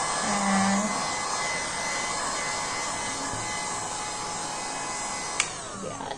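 Heat gun blowing hot air with a steady whirr, switched off with a click about five seconds in, its fan winding down with a falling whine.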